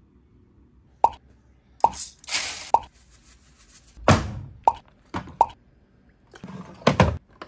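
A string of about nine short, hollow pops, a couple of them in quick pairs near the end, with a brief hiss about two seconds in.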